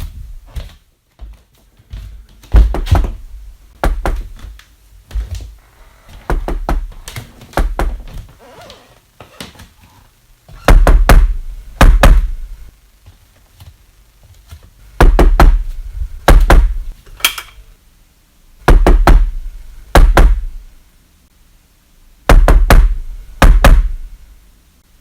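Heavy knocking: uneven lighter raps at first, then four loud pairs of thudding blows, the two blows of each pair about a second apart.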